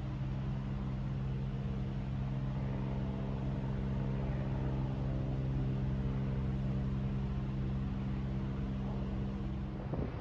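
Steady low drone of the LNG-fuelled ferry Sunflower Kurenai's engines and machinery, a hum made of several steady low tones, which stops about ten seconds in.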